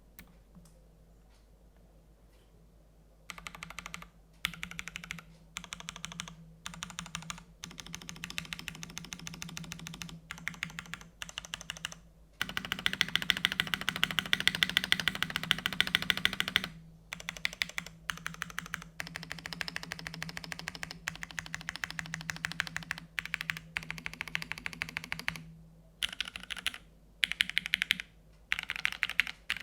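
Typing on a TGR Jane v2 CE mechanical keyboard: top-mounted carbon fibre plate, lubed Cherry MX2A Orange switches and GMK keycaps. A few faint clicks at first, then bursts of keystrokes with short pauses, with a long, fast, loud run of typing in the middle.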